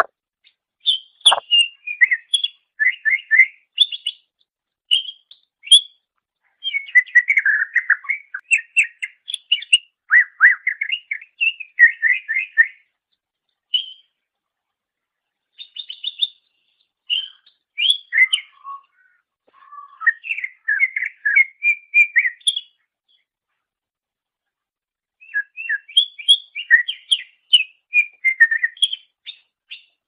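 Cucak ijo, a green leafbird, singing: runs of quick, varied chirps and whistles, in several phrases separated by short pauses.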